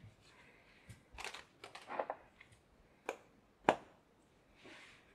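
Quiet handling noises from a vape mod and its packaging: a few scrapes and rustles, then two sharp clicks about three and three and a half seconds in, and a short soft hiss near the end.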